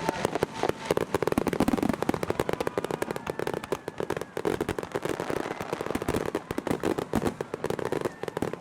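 Aerial fireworks crackling in a rapid, continuous barrage of many sharp small bangs, packed closely together.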